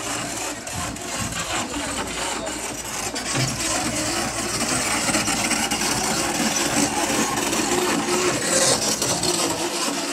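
Heavy machinery engine running steadily, a dense constant noise that grows a little louder from about four seconds in.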